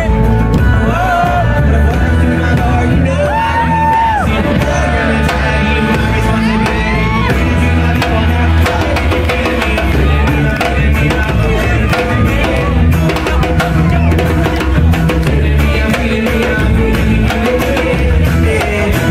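Live band playing, recorded from the crowd: a male singer's sliding vocal lines over acoustic guitar, bass and drums in the first half, then the band playing on with a steady beat.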